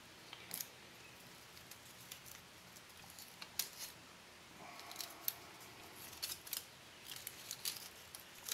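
Aluminum foil tape being handled for wrapping a restuffed filter capacitor can: faint, irregular sharp crinkling clicks that come thicker in the second half.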